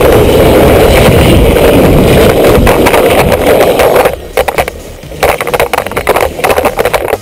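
Loud steady rushing of wind and wheels as a drift trike speeds downhill. About four seconds in it cuts off and gives way to irregular knocks, clatters and rustling as the trike runs off the road into grass and brush.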